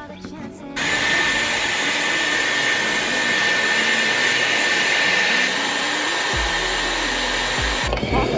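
Hot-air hair styling wand running as a lock of hair is wound on its barrel: a steady rush of blown air with a steady high whine from its motor. It starts about a second in and cuts off shortly before the end.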